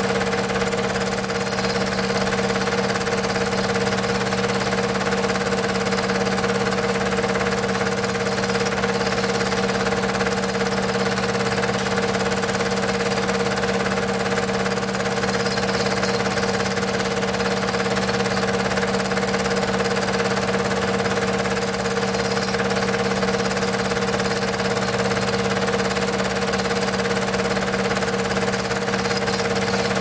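Film projector running: a steady motor hum and mechanical whir that holds at an even level throughout.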